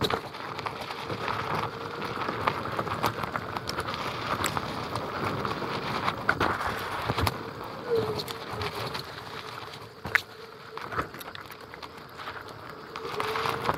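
Onewheel GT riding over dirt and gravel, heard through a microphone mounted inside the board's rail: the hub motor's faint steady whine, which bends up in pitch about eight seconds in and again near the end, under the rough crunch of the tyre on the trail, with scattered sharp clicks and pops of grit.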